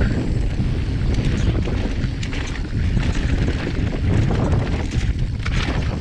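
Wind rushing over the microphone as a mountain bike rolls down a dry, rocky dirt trail, with the steady rumble of tyres on dirt and gravel and scattered small clicks and rattles from the bike.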